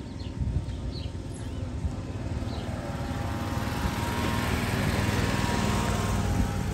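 A John Deere Gator utility vehicle drives past with its small engine running. It grows louder as it approaches and is loudest near the end.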